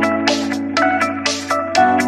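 Background music: sustained chords with a steady beat.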